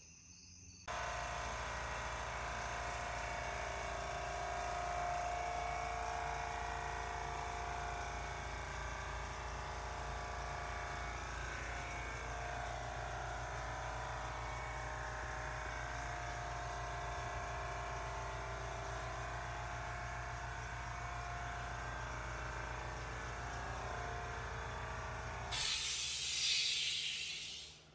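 A small motor running steadily, then a short hiss near the end.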